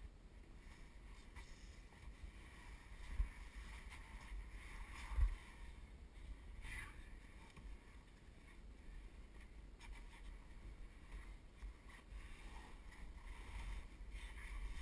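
Faint rustling and scraping of clothing and gear brushing against sandstone walls while squeezing through a narrow slot, over a low rumble from the camera being handled, with two bumps about three and five seconds in.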